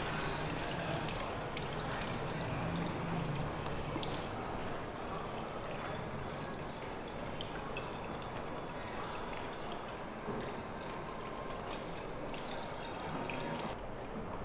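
Tap water running from a flexible hose into a sink basin and over bare feet as they are rinsed, a steady splashing stream with a few small knocks. The water cuts off shortly before the end.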